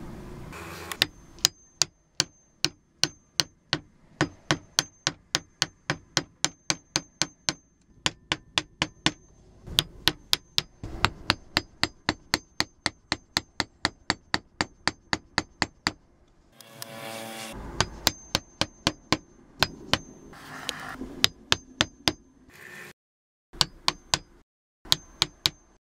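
A steel chisel being tapped with a hammer, chopping into a clamped block of wood: rapid sharp strikes about three a second, in long runs broken by a short pause a little past halfway.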